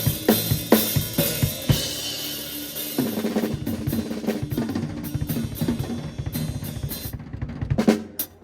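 Acoustic drum kit being played in a sound check: kick, snare and cymbals. Loud, evenly spaced hits with cymbal wash open the passage, followed by busier, quieter playing that thins out before one strong hit near the end.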